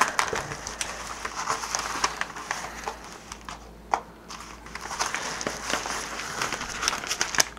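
Rustling and crinkling of a yellow padded mailer as it is handled, turned over and reached into, with scattered small clicks and a sharper tick about four seconds in.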